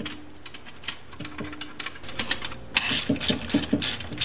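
Ratchet wrench clicking in quick, even strokes, about five clicks a second from about two seconds in, as crankcase bolts are run down snug; before that, only faint scattered ticks of tool and metal handling.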